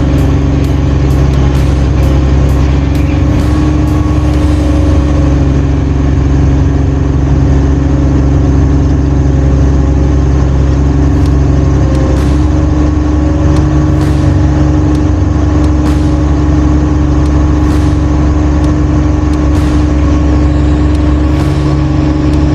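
Crane's diesel engine running steadily at a constant speed, with a steady low hum.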